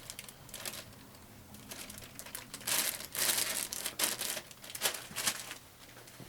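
Crinkling and rustling in irregular bursts, loudest around the middle, as a new sewing machine power cord and its packaging are handled.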